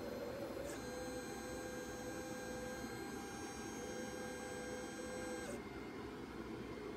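PocketNC V2 desktop 5-axis CNC mill running with a steady motor whine as its axes move the spindle clear of the part after cutting. The whine stops about five and a half seconds in, leaving a low steady hum.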